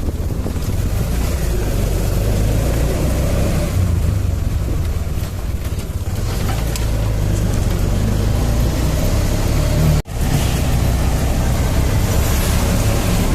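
Riding in an auto-rickshaw: its small engine running, with road rumble and wind buffeting the microphone. The noise breaks off for a moment about ten seconds in, then carries on.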